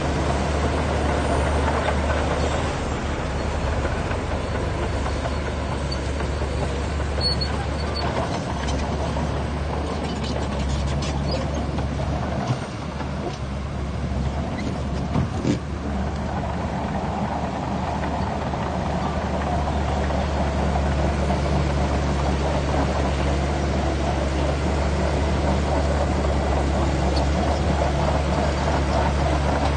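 Heavy diesel earthmoving machinery running steadily, a low engine drone with a brief drop in level about halfway through.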